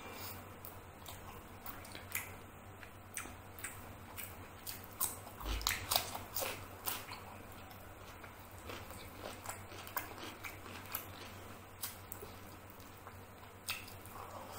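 Close-miked eating of chicken curry and rice by hand: wet chewing and mouth clicks, with fingers squishing rice into the curry. The clicks come irregularly, with a louder cluster and a low thump about halfway through.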